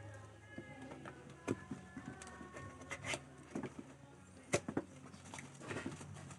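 Cardboard box and its packaging being handled and opened: scattered taps, clicks and crinkles, with a few sharper knocks.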